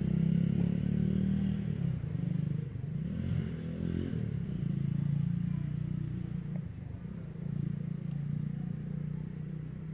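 A motor engine running steadily with a low hum, its pitch shifting up and down briefly about three to four seconds in.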